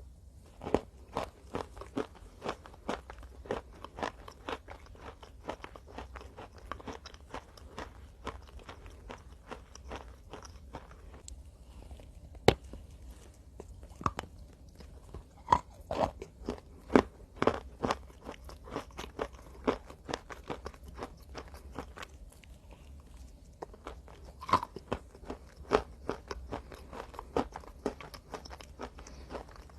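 A person biting and chewing crunchy chunks of cornstarch close to the microphone: a quick, uneven run of sharp crunches, with two brief pauses and one especially loud bite about twelve seconds in.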